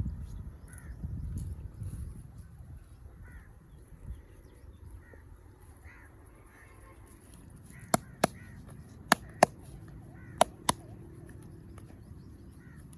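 Crows cawing faintly in the background during a head massage, with a low rubbing noise that fades over the first couple of seconds. Past the middle come three pairs of sharp hand slaps, the loudest sounds here, typical of the percussive strokes of a traditional head massage.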